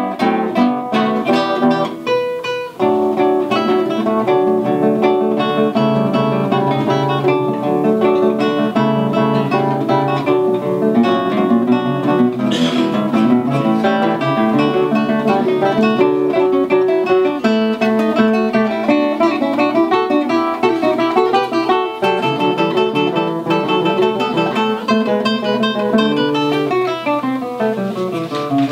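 Two 19th-century romantic guitars playing a classical duet, plucked notes throughout, with a short break about two seconds in and a descending run near the end.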